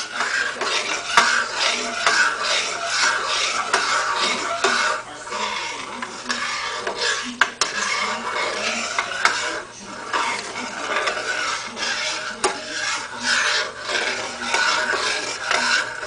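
Metal spoon stirring liquid in a stainless steel saucepan, scraping and clinking steadily against the pan's sides and bottom, with a few sharper clinks.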